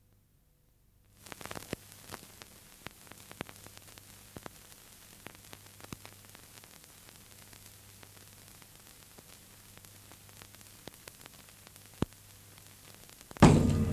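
Steady static hiss with scattered crackles and clicks over a low hum, starting about a second in, with one sharper click near the end. Music comes in loudly just before the end.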